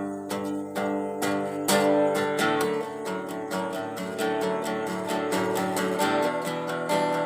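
Instrumental passage of a worship song: acoustic guitar strumming chords in a steady rhythm, with no singing, the chord changing a couple of times.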